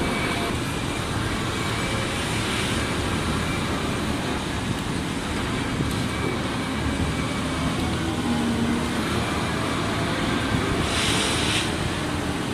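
Heavy machinery engine running with a steady low rumble, with a brief hiss about 11 seconds in.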